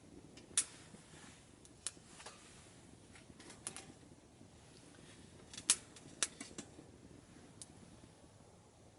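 Wood fire crackling in a small camp stove: irregular sharp pops and ticks, a few louder snaps among them.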